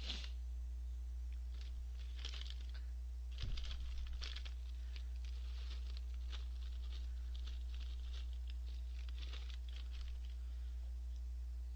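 Plastic bag of Orion Gorae-bap crackers crinkling and rustling in short irregular bursts as a hand rummages in it. There is one dull knock about three and a half seconds in.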